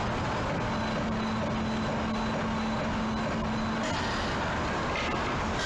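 An Amada Vipros King turret punch press cell with its LKI PR250 loading gantry running, giving off a steady machine noise. A steady hum stops about two thirds of the way through, and a couple of light knocks come near the end.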